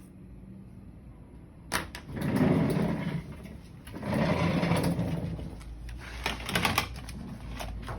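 A sharp click about two seconds in, followed by two stretches of indistinct, muffled voices and a few clicks near the end, over a low steady hum.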